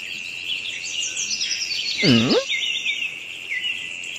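Birds chirping over a steady, high insect drone. About two seconds in, a short, loud, pitched sound swoops down and back up.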